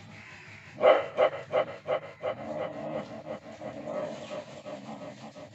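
A dog vocalizing: a quick run of about five short, sharp sounds, roughly three a second, starting about a second in, followed by a fainter, continuous whine-like sound.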